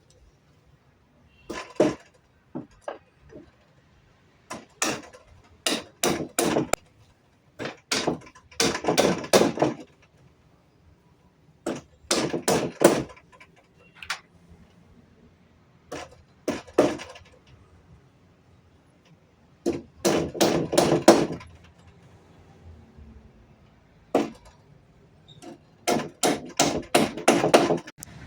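Sharp knocks on wood in bursts of several quick strikes, with pauses between the bursts.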